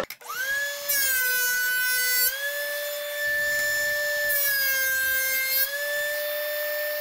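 DeWalt 13-inch thickness planer switched on, its motor spinning up within a moment to a loud, steady whine. Twice a hardwood board feeds through the cutterhead. Each pass adds a harsh cutting noise, and the motor pitch drops slightly under the load, then recovers when the board clears.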